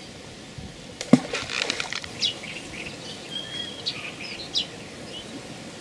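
Small birds chirping in short high notes, with one brief whistled call among them. One sharp knock comes about a second in, followed by a short rustle.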